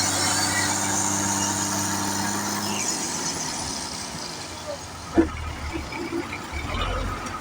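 A construction machine's engine running steadily, then stopping abruptly about three seconds in. A quieter low rumble follows, with a few brief voice-like sounds.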